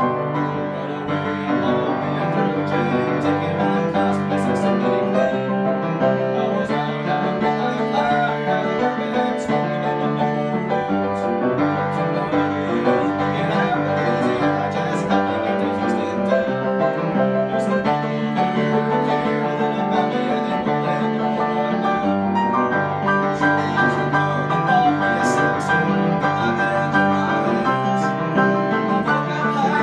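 Grand piano being played, a continuous flow of chords and melody.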